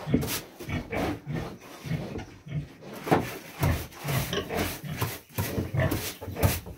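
A heavily pregnant sow close to farrowing grunting in a steady run of short, low grunts, about two or three a second, as she moves restlessly about her pen.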